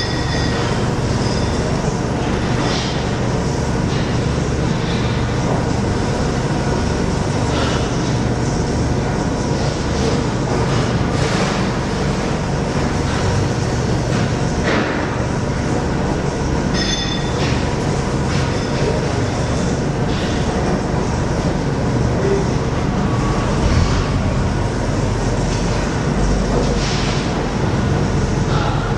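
Cousins Packaging Model 4100 rotary tower stretch wrapper running: a steady mechanical rumble with scattered clicks and knocks.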